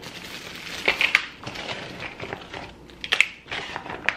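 Plastic oven bags and a bag of mussels crinkling as they are handled, with sharp clicks of mussel shells knocking together about a second in and again near the end.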